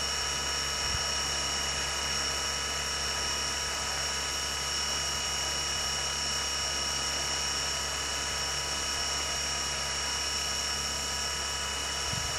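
Small brushless outrunner motor spinning steadily with no propeller, driven by a Turnigy Multistar 30A ESC flashed with SimonK firmware. It makes a constant high whine with a steady hum beneath, with no change in speed.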